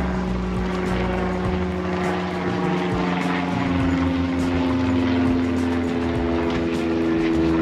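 A propeller-driven light aircraft flying over, its steady engine hum dropping slightly in pitch about three to four seconds in as it passes.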